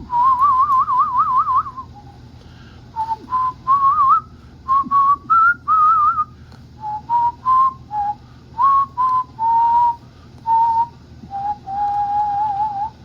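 A man whistling a slow tune with a wide vibrato: a long wavering opening note, then a run of shorter notes rising and falling, ending on a long held lower note.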